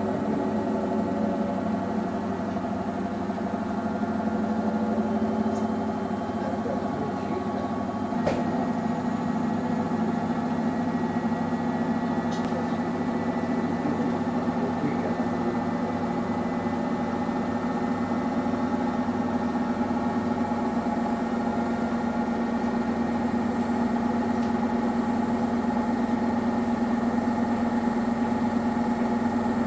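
Samsung Eco Bubble washing machine running early in a 40° cotton wash, a steady motor hum with a short click about eight seconds in.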